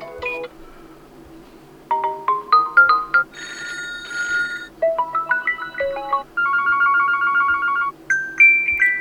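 Huawei P60 Pro default ringtones previewed one after another: short melodic chimes and rising runs of notes, changing every second or two, with a fast pulsing chord in the middle.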